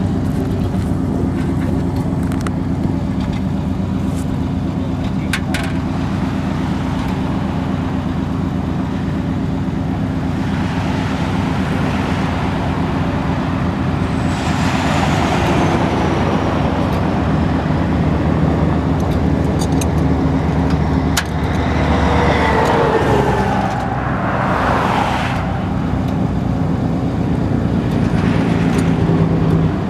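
Road traffic going by: a steady low engine hum with vehicles passing that swell and fade around the middle and again later, one with a falling high whine. A few faint clicks.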